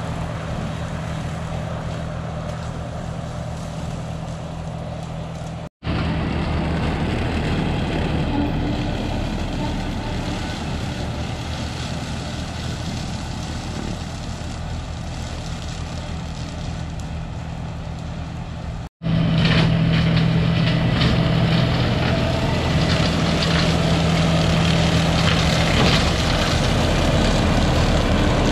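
John Deere 5075E tractor's diesel engine running steadily while pulling a flex-wing rotary mower through pasture. The sound breaks off twice and comes straight back; after the second break it is louder, with more rushing noise.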